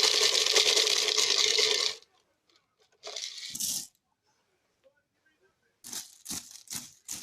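A dense, loud rattling clatter of small hard objects for about two seconds, a shorter burst about a second later, then several short separate rattles near the end.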